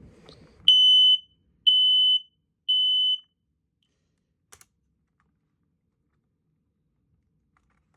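Smoke alarm's horn sounding a button test: three high-pitched beeps of about half a second each, half a second apart, in the temporal-three evacuation pattern, then stopping.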